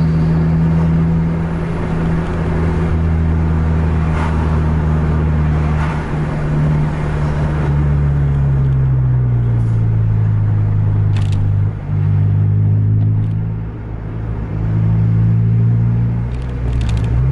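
Road vehicle's engine and road noise heard from inside the cabin: a steady drone that falls in pitch as the engine slows from about six to ten seconds in and rises again near the end. A sharp click about eleven seconds in.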